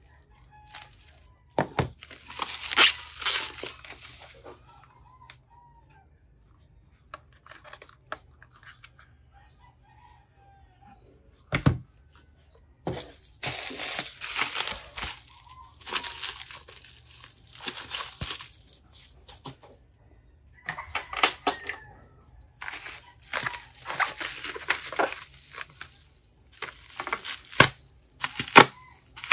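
Plastic bubble wrap crinkling and tearing as it is pulled open by hand, in repeated bursts of a second or two. There is a quieter stretch in the middle, broken by a single sharp knock.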